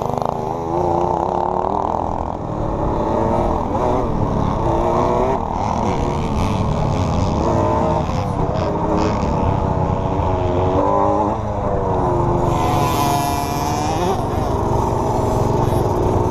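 Small youth dirt bike engine revving up and down over and over as the rider accelerates and backs off around the track, with wind rushing over the helmet camera.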